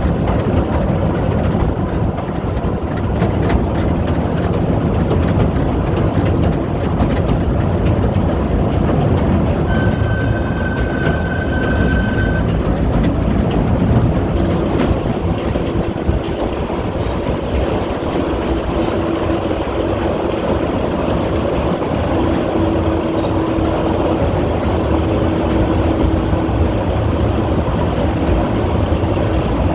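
Kurobe Gorge Railway narrow-gauge train running along the track, heard from aboard its open-sided Ha-type passenger car: a steady rumble of wheels and rails. A thin high squeal sounds for about two seconds roughly ten seconds in, and a lower whine comes and goes through the second half.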